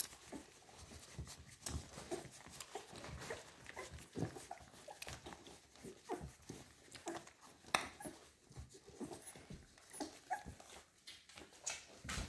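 A litter of American Staffordshire Terrier puppies suckling and jostling at their mother's teats: many short, irregular suckling clicks mixed with small squeaks and whimpers.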